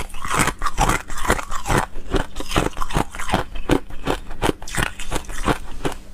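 Someone chewing crunchy ice, one crunching bite after another in a steady rhythm of about two or three a second.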